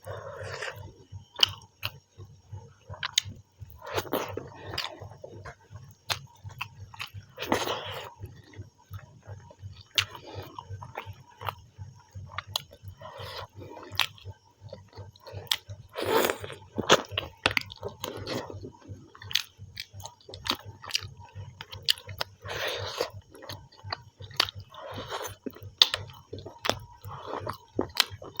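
A person chewing and eating chicken and rice close to the microphone: irregular wet mouth sounds and smacks with many small clicks.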